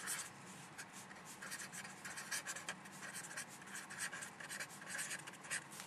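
Felt-tip pen writing on paper: a run of quick, light scratching strokes as a line of handwriting is written out.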